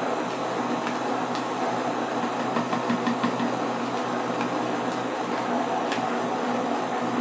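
Countertop blender motor running steadily, blending thick cream, with a few faint ticks over the whir.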